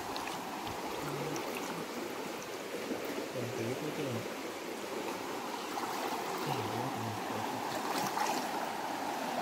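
Shallow stream water running and splashing steadily around someone wading in it.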